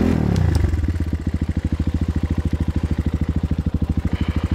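Kayo T4 enduro dirt bike's single-cylinder engine. Its revs drop away in the first second, then it idles with an even, rapid beat of about a dozen firing pulses a second.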